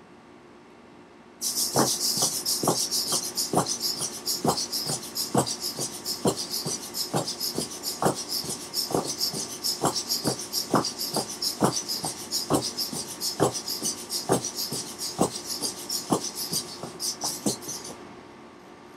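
A hexapod robot's micro servos (Tower Pro MG90S) whirring as it steps through a turning gait, its leg tips tapping the hardwood floor about twice a second. The motion starts about a second and a half in and stops shortly before the end.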